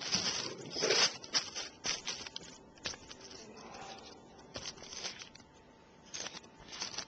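Close handling noise: crumpled plastic sheeting rustling and crinkling, with small clicks as a plastic clip-on tuner is picked up and set down on a roll of tape. The louder rustles come right at the start, about a second in, and again near the end.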